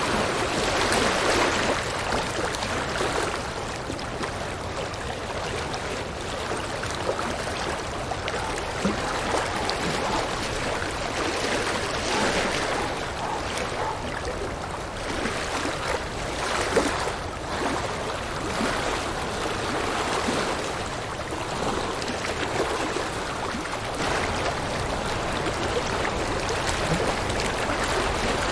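River water flowing and splashing over rocks, a steady rushing that swells and eases slightly every few seconds.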